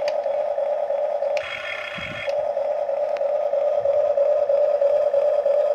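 Small electric motors of a Huina RC toy excavator whining steadily as the boom and bucket move. A higher buzzing tone joins about a second and a half in and lasts about a second.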